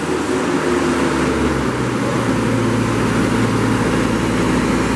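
The Kubota diesel engine of a Moffett M55.4 truck-mounted forklift runs steadily as the forklift drives across a concrete floor. The engine note changes about two seconds in.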